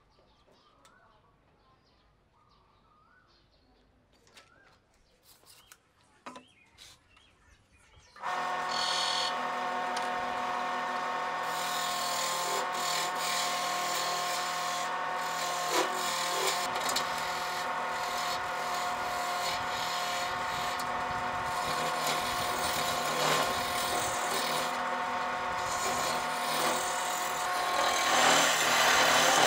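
A power tool working wood switches on about eight seconds in and runs steadily with a hum and a rough grinding noise, growing louder near the end. Before it starts there is only faint chirping.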